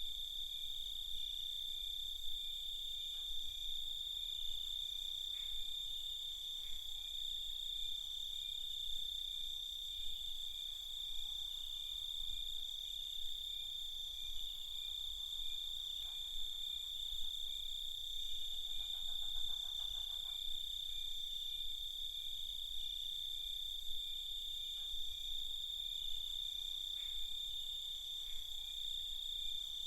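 Night chorus of crickets: a steady, continuous high-pitched chirring that does not let up. A brief lower, pulsing trill joins about two-thirds of the way in.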